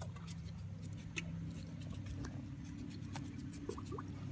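Scattered small ticks and light water splashes from a bass held at the surface by a shad's tail in its mouth, over a steady low hum.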